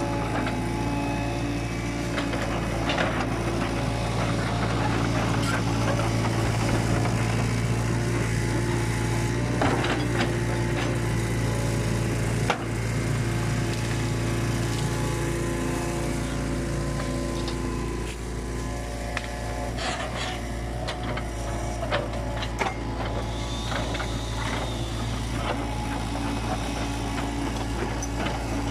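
Compact tracked excavator's diesel engine running steadily as the machine works, with scattered knocks and cracks as the bucket moves among felled tree trunks and branches. The engine note eases off a little about two-thirds of the way in.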